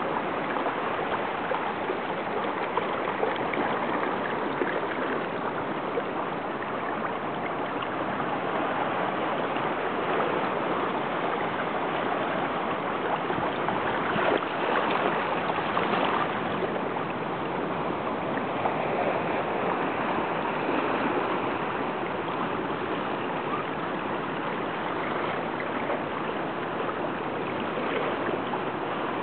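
Shallow seawater washing and trickling over flat shoreline rocks, with small waves lapping: a steady rushing splash that swells slightly now and then.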